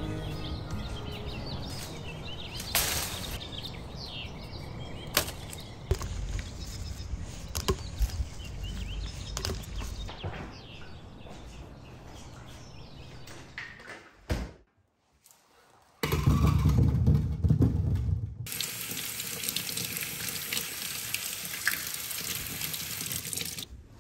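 Rustling with scattered sharp clicks while oranges are picked from the tree with a long-handled fruit picker. After a brief near-silent gap, water from a kitchen tap runs into the sink for the last eight seconds or so, heaviest at first and then as an even hiss that stops just before the end.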